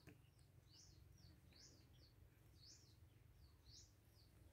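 Near silence with faint, short high chirps from small birds, each rising then falling, a couple a second.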